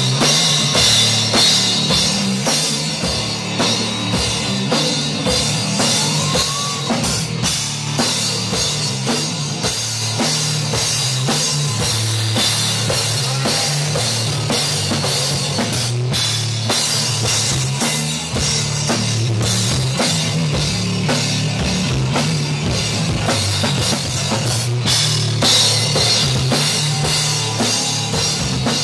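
Rock band playing live, the drum kit to the fore with cymbals and bass drum, over electric guitar.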